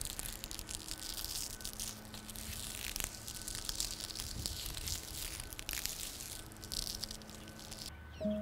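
Crisp crackling and rustling as fingers rub and squeeze the papery bracts of strawflower heads, with many fine crunchy clicks.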